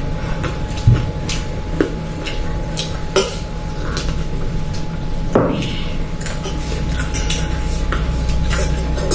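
Forks and spoons scraping and clinking against metal plates of noodles during eating, with scattered sharp clinks and knocks. A steady low hum runs underneath.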